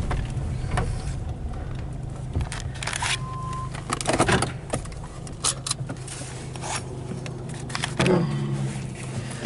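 Car engine running at low speed, heard from inside the cabin, with scattered clicks and knocks and a brief high tone about three seconds in.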